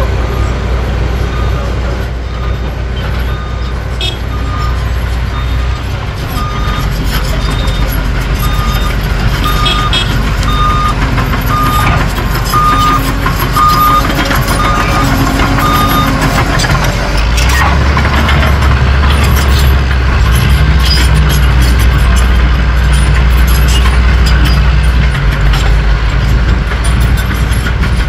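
Bulldozer's diesel engine running with its back-up alarm beeping steadily, about one and a half beeps a second, until about 16 seconds in. From about 17 seconds the engine rumble gets louder, with crackling over it.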